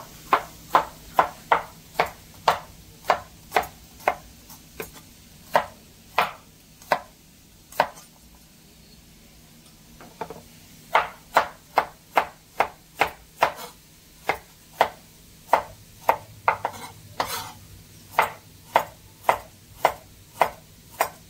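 Knife chopping on a cutting board in steady strokes, about two a second. The strokes stop for a couple of seconds midway, then resume a little faster.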